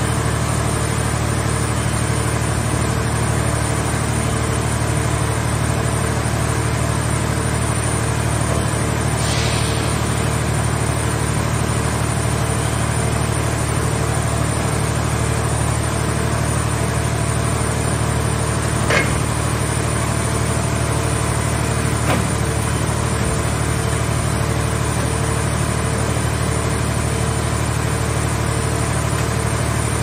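Hydraulic power unit of a scrap car-shell baler and its grab-loader arm running steadily with a low hum. A brief hiss comes about nine seconds in, and two sharp clanks about three seconds apart come past the middle.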